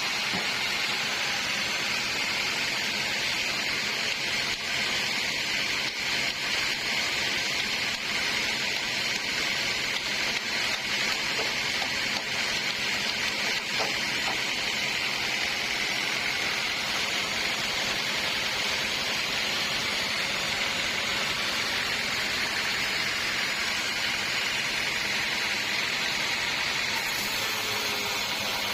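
Sawmill saw running steadily, an even hiss with a faint low hum beneath and no clear change.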